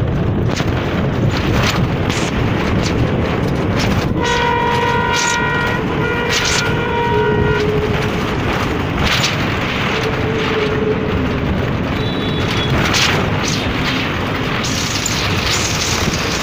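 Steady engine and road noise heard from inside a moving local bus, with wind rush. About four seconds in, a vehicle horn blows a held multi-tone note for several seconds, breaking briefly partway.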